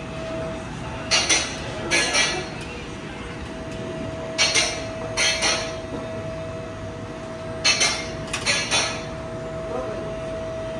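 Short metallic clanks and taps in clusters of two or three, a second or two apart, from tools working on metal exhaust parts, over a steady faint hum.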